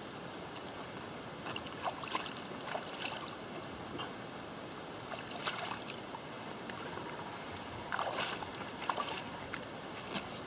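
A shallow stream flowing steadily, with short scattered splashes and crunches as a wader-clad angler works at the water's edge and then steps across the gravel bank.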